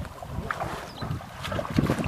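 Water sloshing and splashing irregularly as people wade waist-deep and haul a fishing net through a bed of water hyacinth.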